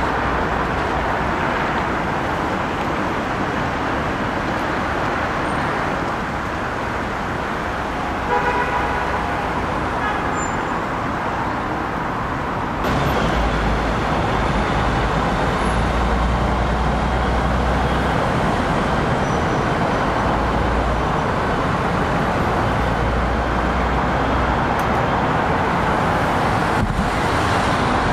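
Steady road traffic noise from passing cars, with a short pitched toot about eight seconds in. The traffic gets louder, with more low rumble, about thirteen seconds in.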